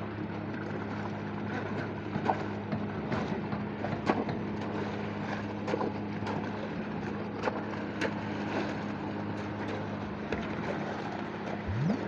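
An engine running with a steady hum, under scattered scrapes and knocks of hand tools working wet concrete over slab rebar.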